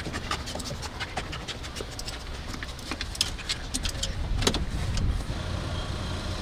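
A detection dog clambering about inside a van's cab while searching: quick clicks, scuffs and scrabbles of its claws and paws on the seats and trim, with a heavier knock about four and a half seconds in. Near the end a steady car engine hum takes over.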